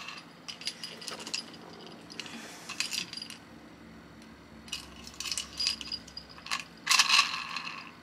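Miniature keychain slot machine toy worked by hand: its lever pulled and the little reels clicking and rattling as they spin and stop, with the small jingle bell on it jingling. It comes as several short bursts of clicking and jingling.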